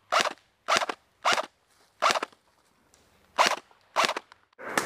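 Airsoft rifle firing six short, sharp bursts at uneven intervals, about half a second to a second and a quarter apart.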